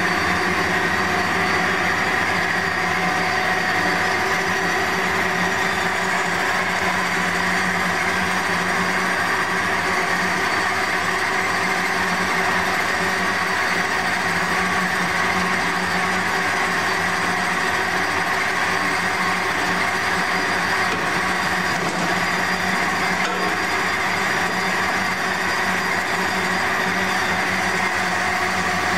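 Amada HA-400W automatic horizontal band saw running under power: a steady machine hum with a high whine, holding an even level.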